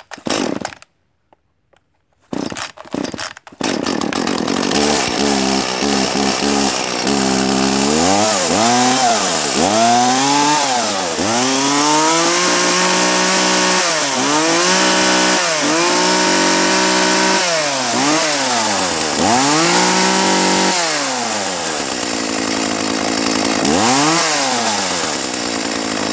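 Two-stroke gasoline chainsaw pull-started with its starter cord, catching about three seconds in and idling. It is then revved up and down again and again, each rev rising and falling in pitch, and settles back to idle, running well on fresh fuel and bar oil after a new chain was fitted.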